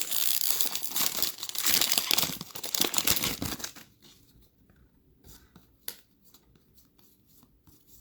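Foil wrapper of a trading card pack being torn open and crinkled for about four seconds, then quiet with a few light clicks as the cards are handled.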